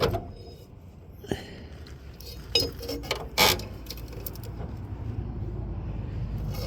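Metal tools and lawn tractor parts clinking and knocking as they are handled, with five or so sharp clanks in the first three and a half seconds. A low steady rumble grows slowly through the second half.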